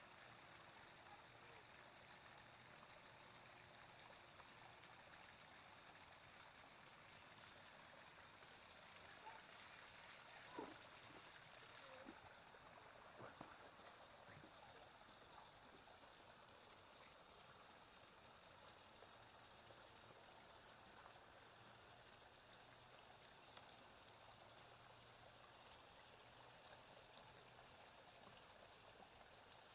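Near silence: a faint, steady outdoor hiss, with a few faint clicks or rustles near the middle.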